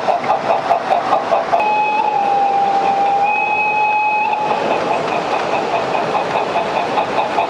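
Sound of an O-gauge model steam locomotive: a rhythmic chuff of about four to five beats a second. A little after one and a half seconds in it gives way to a steady whistle blast lasting about three seconds, and then the chuffing resumes.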